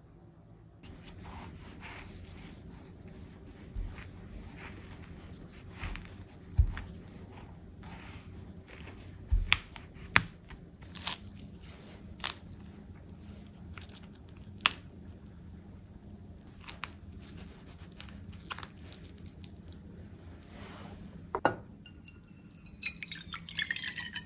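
Kitchen knife cutting a juicy peach on a wooden cutting board: scattered wet clicks and squishes from the flesh, with a few louder knocks of the blade on the board. Near the end comes a short run of high, ringing drips.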